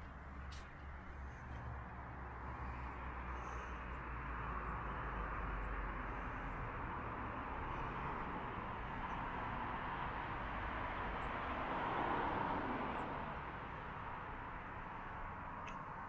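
Garden ambience: a steady hiss that swells toward the middle and slowly fades, with a few short, very high bird chirps every second or two.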